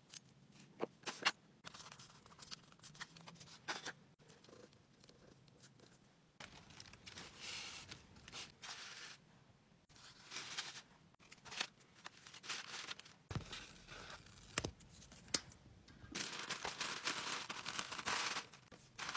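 Hands packing a small order by hand: sharp taps and clicks as items are handled and set down, then rustling and crinkling of paper shred filler and tissue paper being folded, all fairly quiet.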